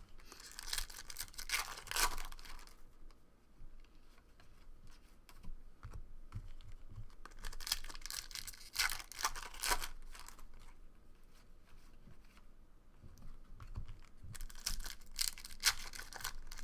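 Foil wrapper of a trading-card pack being torn open and crinkled, in three bursts of rustling a few seconds apart.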